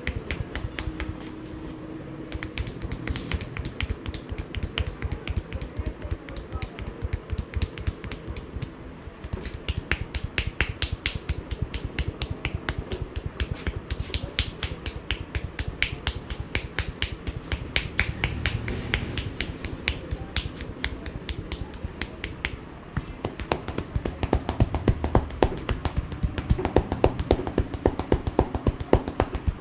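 A barber's hands striking in a quick, continuous percussive massage, a rapid run of sharp taps and slaps that grows louder over the last few seconds.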